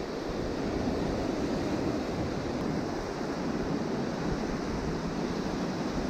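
Ocean surf washing over rocks in a steady rush, with wind buffeting the microphone.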